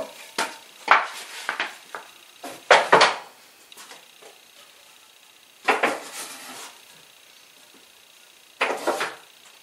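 Knocks and clatter of wooden model-cart parts being handled and set down on a workbench: a run of sharp knocks in the first three seconds, then two short bursts of clatter about six and nine seconds in.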